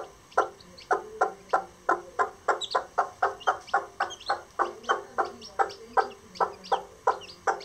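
Lavender Old English Game bantam hen clucking to her chicks in a rapid, steady run of short clucks, about three a second, the brooding hen's call that keeps the chicks close and draws them to food.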